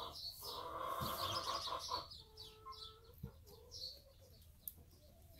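Chickens clucking, loudest in the first two seconds, then a long drawn-out note and a few high chirps. Two soft thumps are heard, about a second in and after three seconds.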